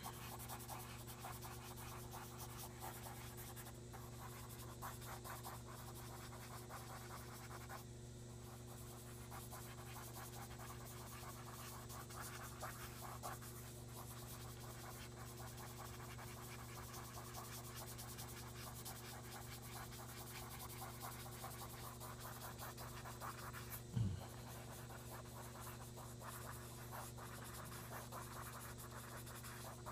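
Faint scratchy rubbing of a cotton swab working pigment into drawing paper, in many short strokes, over a steady low hum. One soft thump about three-quarters of the way through.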